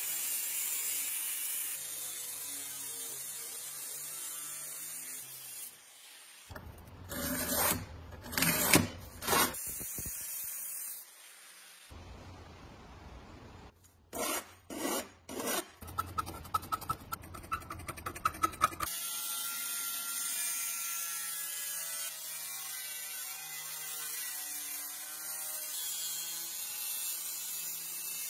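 Angle grinder cutting sheet steel with a steady hiss, broken in the middle by hand-filing strokes along the cut steel edge and a quick run of scraping ticks, before the grinder cuts again.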